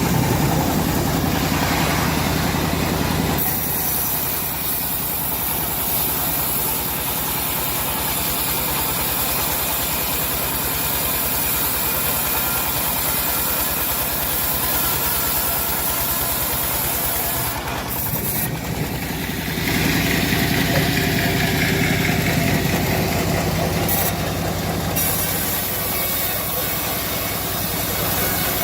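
Engine-driven homemade bandsaw mill running steadily while its blade saws through a teak log. The sound changes about three seconds in, and grows louder and brighter for a few seconds around the twenty-second mark.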